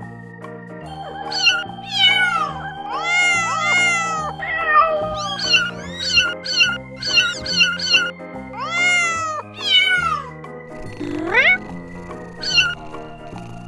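Very young kittens mewing over and over: thin, high calls that fall in pitch, sometimes several overlapping, above background music with a stepping bass line.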